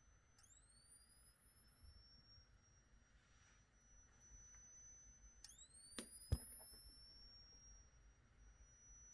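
Faint, high-pitched charging whine of a vintage Space Age AV32 strobe. Its pitch drops sharply and climbs back up to a steady tone, once about half a second in and again after about five seconds, each time the strobe flashes and recharges. Two sharp clicks about six seconds in; the second is the loudest sound.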